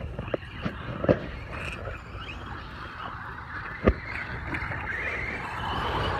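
Radio-controlled Traxxas Slash short-course trucks racing over dirt, their motors and tyres growing louder near the end as they pass close. Two sharp knocks, about a second in and just before four seconds.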